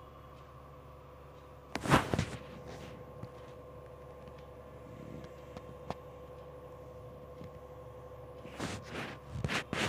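Metal spatula stirring frying onions in a stainless-steel kadai, knocking and scraping against the pan sharply about two seconds in and again in a cluster near the end, over a steady background hum.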